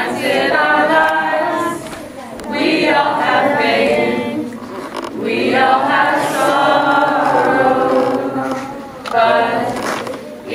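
A small group of teenage voices singing a cappella from song sheets, in several phrases with short breaths between them.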